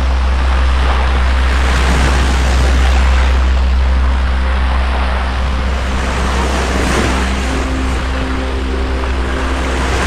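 Sea surf breaking and washing onto a beach in a continuous rush, with a steady low rumble underneath.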